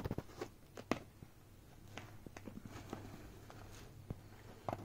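Beagle puppy pawing and nosing at a mesh fabric bag: faint, scattered light taps, scratches and rustles of the fabric, with a steady low hum underneath.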